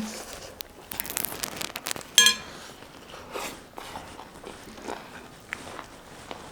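Tableware clattering during a meal, with scattered small clicks and rustles. About two seconds in comes one sharp, ringing clink of a dish or glass being struck.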